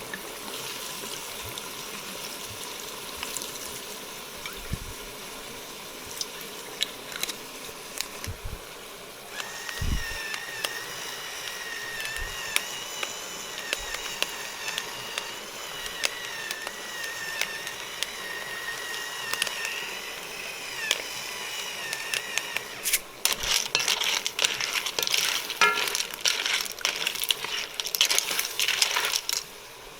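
Pan cooking: a steady hiss, with a high, slightly wavering whine from about a third of the way in to two-thirds through. Dense crackling and clicking of sizzling and utensils in the pan follows near the end.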